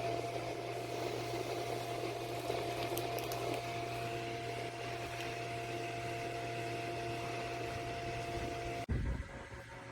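Koonie USB clip-on desk fan running steadily, a small motor's even whine over a low hum and airy noise. It stops abruptly about nine seconds in, giving way to a low, uneven wind-like rumble on the microphone.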